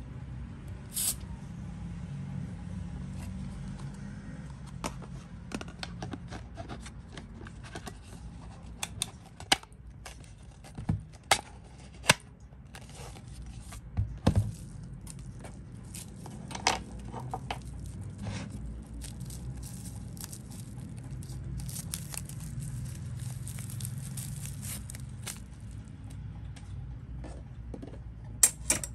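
Hands handling hard plastic: scattered clicks, taps and scrapes as an Air Wick Freshmatic dispenser's plastic housing and its refill can are turned over and its battery compartment is opened, over a steady low hum.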